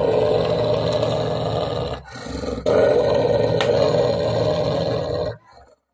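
Pit bull growling steadily, its jaws clamped on a plastic bottle: two long growls with a short break about two seconds in, stopping shortly before the end.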